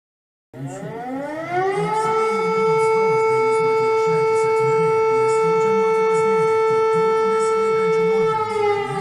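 Civil defense siren winding up from a low pitch to a steady, loud tone, then beginning to wind down near the end.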